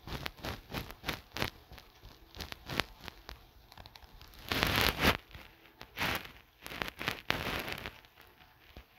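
Phone handling noise picked up by the phone's own microphone: irregular light taps and clicks of fingers on the touchscreen, with a few louder rustles about half a second long in the middle.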